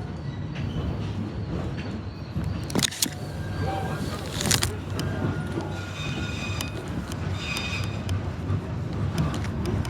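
Steady low rumble of a moving vehicle, with a few sharp knocks about three and four and a half seconds in.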